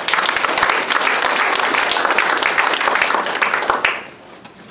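An audience of schoolchildren applauding loudly, dying away about four seconds in.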